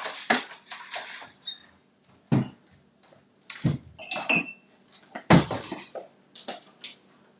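Kitchen dishes and cutlery clattering in a string of irregular knocks and clinks. One clink rings briefly about four seconds in, and the loudest, heaviest knock comes a little past five seconds.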